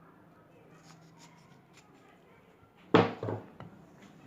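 Faint light clicks of kitchen work, then about three seconds in two loud knocks in quick succession and another near the end: hard kitchen items knocking against a work surface.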